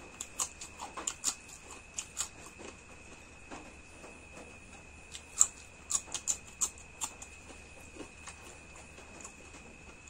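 Close-miked eating: wet mouth smacks and chewing clicks at an irregular pace, with the loudest smack about five and a half seconds in.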